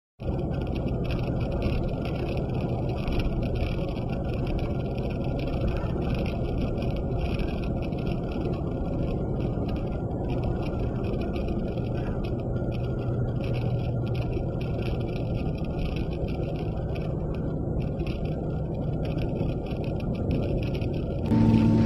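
Steady road rumble of a car being driven, heard from inside the cabin. Music cuts in, louder, just before the end.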